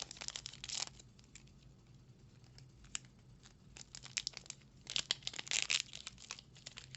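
Foil wrapper of a Magic: The Gathering set booster pack crinkling and being torn open: short crackly bursts in the first second, a quieter stretch, then a dense spell of crinkling and tearing about five seconds in.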